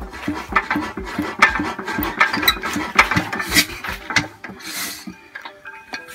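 Antique Imperial Super Diesel hit-and-miss engine being turned over by hand at the flywheel: an even clatter of knocks from the engine's moving parts, about three to four a second, that stops about four seconds in. A short hiss follows about a second later.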